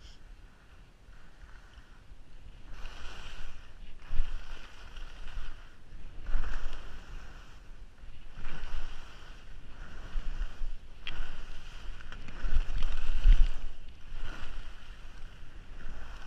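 Skis scraping across packed snow as they turn downhill, in a hissing surge about once every second or so. Wind rumbles on the camera microphone underneath.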